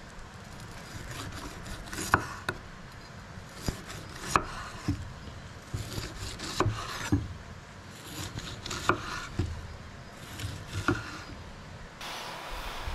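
Kitchen knife slicing a peeled kiwi on a wooden cutting board: each cut ends in a sharp knock of the blade on the wood, about every second or so. The knocking stops near the end.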